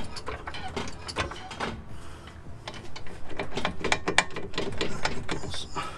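Rapid, irregular metallic clicking and clatter as the sway bar end link is worked loose from the front coilover strut of a Mk1 Audi TT, busiest a little past halfway.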